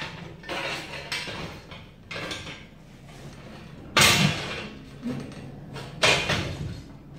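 Flat-pack fire pit's metal side panel being worked down into the slots of the other panels: softer scrapes and knocks, then two loud metal clanks about four and six seconds in as it seats.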